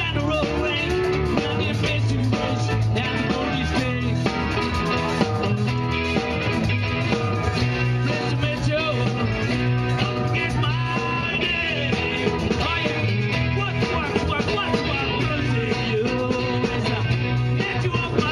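Live amplified rock band playing: electric guitars, drum kit and keyboard behind a singer.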